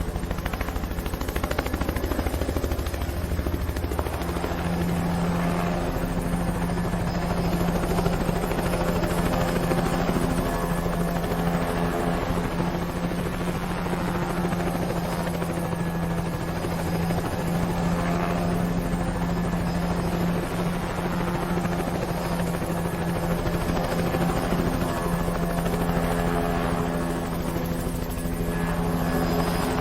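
Helicopter sound effect: a helicopter in steady flight, its rotor beating evenly without a break.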